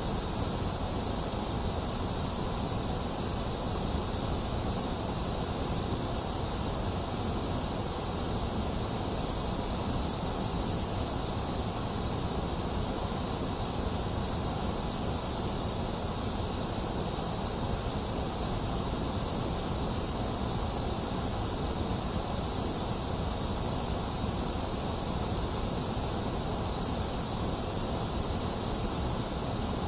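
Box fan running steadily, mixed with falling rain: an even, unchanging rush of noise.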